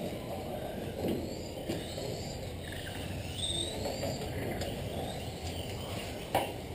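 Small electric RC drift cars running on the track: a faint high whine that rises and falls in pitch as they accelerate and slow, with a couple of sharp clicks.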